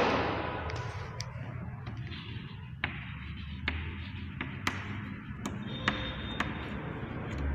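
Chalk on a blackboard while writing: a series of sharp, irregular taps as the chalk strikes the board. It opens on the fading tail of a loud crash.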